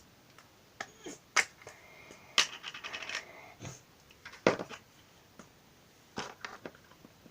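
A string of sharp taps and knocks, Play-Doh being cut and pressed against a hard work surface, with a brief thin high tone about two seconds in.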